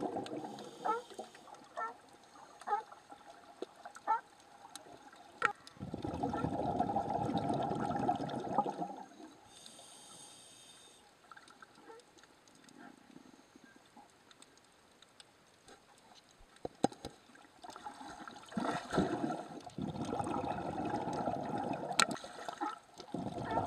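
Underwater scuba breathing: long bubbling rushes of exhaled air from the diver's regulator, each lasting a few seconds, with short hissy inhalations between them and scattered sharp clicks.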